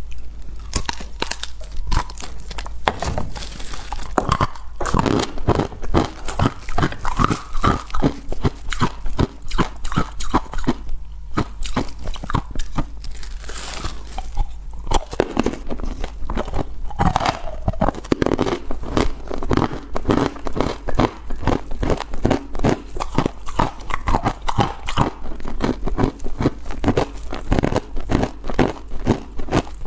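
Close-miked crunching and chewing of hard frozen green pieces: a dense run of sharp crunches and crackles, many each second, without a break.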